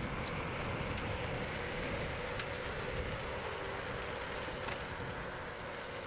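Steady rushing noise with irregular low rumbling, typical of wind buffeting a microphone.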